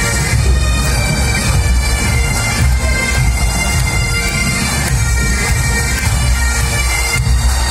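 Massed Great Highland bagpipes of a military pipe band playing a tune in unison over their steady drones.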